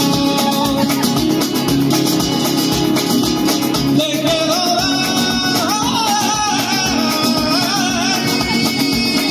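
Live gypsy rumba (rumba manouche) on acoustic guitars: several guitars strumming a fast, steady rumba rhythm, with a sung melody coming in over it about four seconds in.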